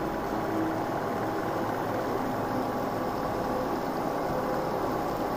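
Gujiya deep-frying in hot ghee: steady sizzling and bubbling of the ghee around the pastries in a nonstick pan.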